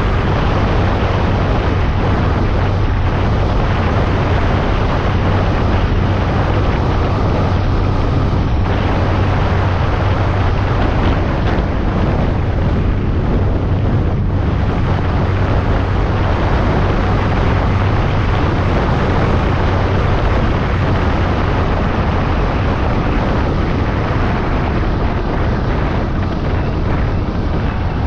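Moving vehicle on the road: a steady low engine drone under heavy wind rush buffeting the microphone.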